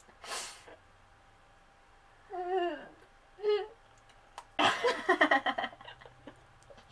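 Young women giggling and laughing: a breathy puff at the start, two short wavering voiced giggles in the middle, and a burst of laughter about two-thirds of the way through, with quiet gaps between.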